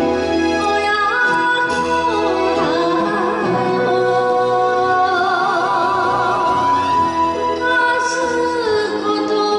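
A woman sings enka into a microphone over a karaoke backing track, holding long notes with a wavering vibrato.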